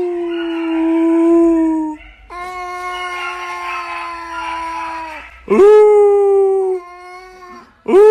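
Long animal howls, several in a row with short gaps. Each starts with a sharp upward slide and then holds a steady pitch for one to three seconds.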